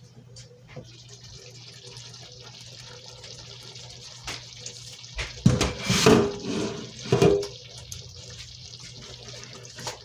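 Pot of matoke and potatoes simmering under its lid on low heat, a steady hiss of bubbling liquid, with a louder burst of noise about halfway through.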